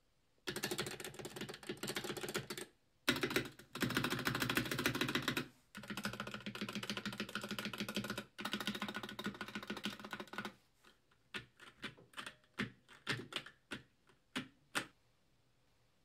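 Keychron K6 mechanical keyboard with Gateron G Pro Red linear switches, its large stabilized keys pressed rapidly in long runs of clacks for about ten seconds. After that come a dozen or so separate single presses, stopping about a second before the end.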